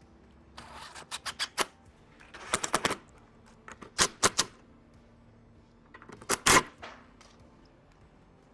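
Cordless drill driving screws to fix a wooden handrail: four short bursts of whirring broken by sharp rapid clicks, the last, about six and a half seconds in, the loudest.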